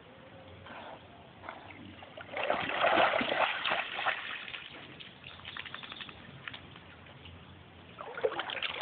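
Smooth collie splashing out of shallow lake water, its legs churning the water loudest for a couple of seconds, then a few smaller splashes as it reaches the shore. A brief noise near the end.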